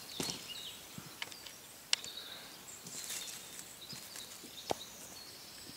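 Dry leaf litter and twigs rustling and snapping as hands work through the forest floor around a cluster of St. George's mushrooms, with a few sharp small snaps. Faint bird calls sound in the background.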